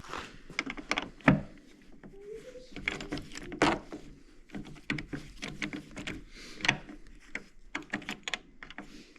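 Irregular clicks, taps and knocks as a replacement door handle is fitted into a Chevy Silverado rear door and its Torx bolts are put back in, with two sharper knocks about a second and three and a half seconds in.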